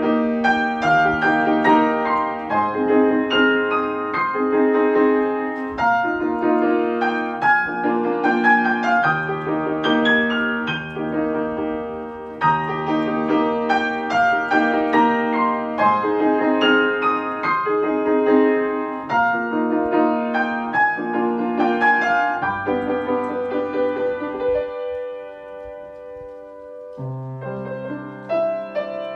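Emperor grand piano played solo: a slow, lyrical ballad with a sustained melody over flowing chords and a bass line. It drops to a softer passage about four-fifths of the way through, then picks up again.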